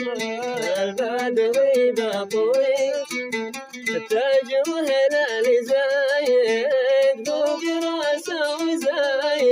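Music from a Hadrami mashqasi song: a plucked string instrument plays a winding melody over regular percussion strikes.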